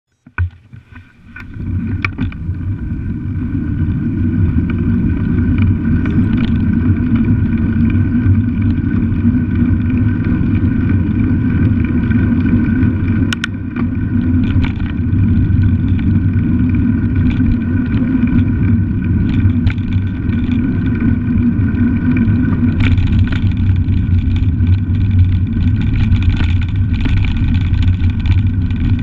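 Wind buffeting a bike-mounted camera's microphone with knobbly bicycle tyres rolling, a loud steady rumble that builds up over the first couple of seconds as the bike gets going. A few sharp knocks from bumps, and the noise grows rougher near the end as the tyres move from tarmac onto gravel.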